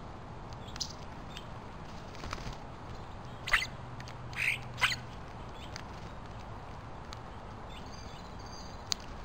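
European starlings at a suet feeder giving a few short harsh calls, three louder ones close together a little past the middle, over a steady hiss.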